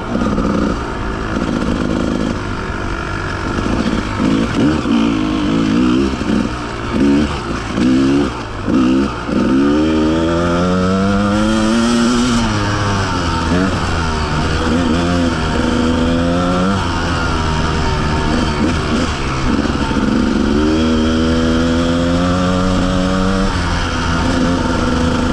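Enduro dirt bike engine under throttle on the trail. It gives a few short revs over the first nine seconds, then longer pulls that rise in pitch and drop back as the rider shifts and rolls off. Near the end it holds a steady pitch.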